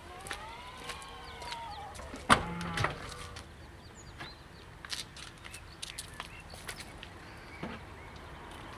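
A rooster crowing once, a long call that rises and falls in pitch, followed about two seconds in by a sharp loud knock and a shorter call, with scattered small clicks around it.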